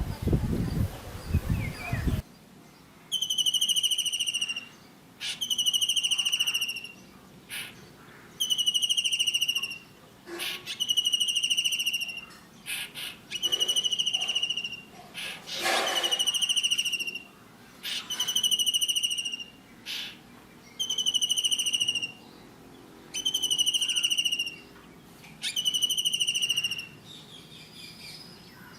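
Kingfisher calling: a long, shrill whistle, each about a second long, repeated roughly every two seconds. A loud low noise fills the first two seconds and cuts off abruptly.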